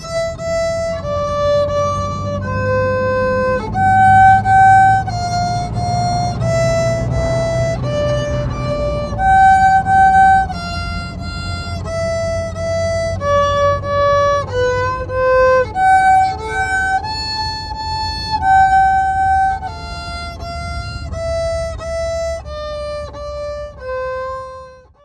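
Violin playing a simple melody of held, separate notes, stepping up and down, over a low background hum; it cuts off suddenly at the end.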